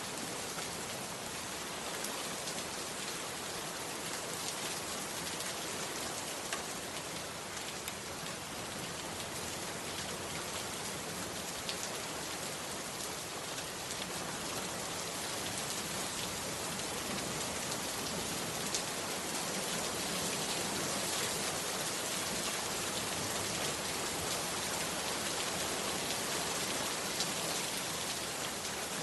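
Heavy rain falling steadily, with scattered sharp drop ticks over an even hiss.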